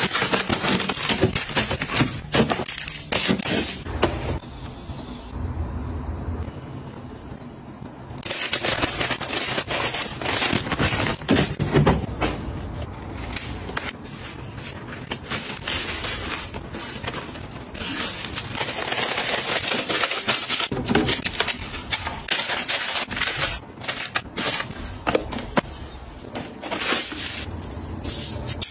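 Groceries in plastic packaging and storage containers being handled and put away: crinkling wrappers and clicking plastic, a quieter stretch about four seconds in, then busier again.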